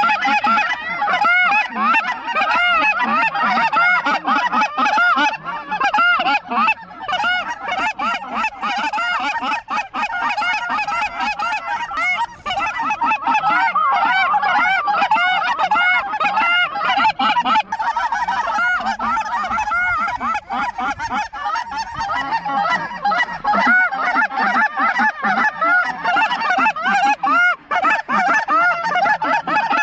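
A large flock of geese honking, a dense chorus of many short overlapping calls without a break.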